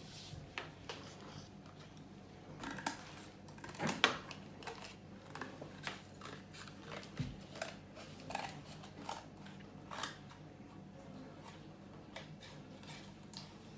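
Scissors snipping through thin cardboard in short, irregular cuts, the sharpest click about four seconds in.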